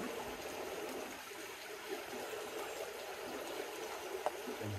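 Steady rush of a flowing creek's current over rocks, with one light click about four seconds in.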